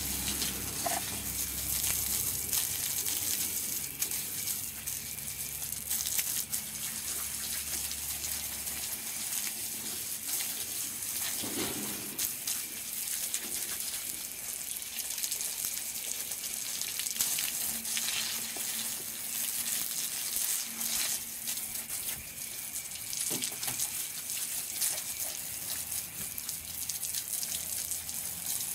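Garden hose spraying water onto a horse's legs and splashing on wet concrete: a steady hiss of running water.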